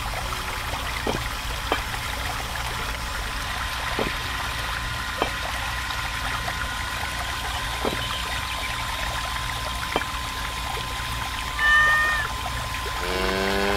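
A thin stream of water from a miniature electric water pump pouring and trickling into a small plastic pond, with a few scattered drips or clicks and a faint steady tone. Near the end come two short pitched sounds, the second lower and wavering.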